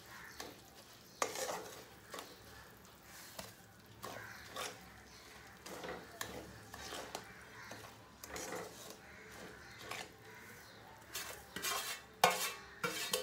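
Spatula stirring and scraping a dry mix of rice flour and roasted sesame and flaxseeds around a steel kadhai, in irregular strokes with light clicks against the metal, and a louder clank near the end.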